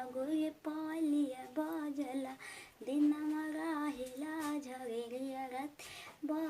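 A female voice singing a jhumar folk song unaccompanied, in long wavering phrases with short breaks between them.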